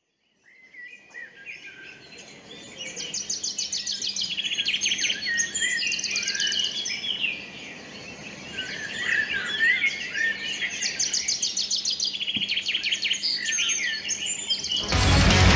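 Many birds chirping and trilling, fading in just after the start. Near the end, loud electric-guitar rock music cuts in abruptly.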